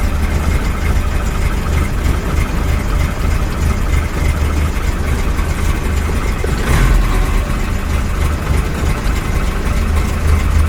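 Bass-heavy music beat playing loud through a Chevette's aftermarket car audio system, with the trunk-mounted subwoofers' deep pulsing bass dominating.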